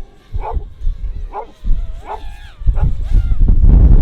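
Dog barking twice, then a whining yip; about two-thirds of the way in, a loud low rumbling noise rises and takes over.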